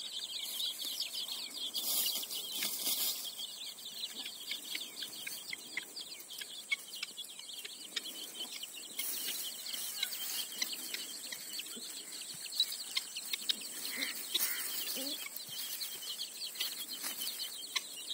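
Young chicks peeping almost continuously, many short high peeps overlapping, with a few low clucks from the mother hen tending them, about two thirds of the way through.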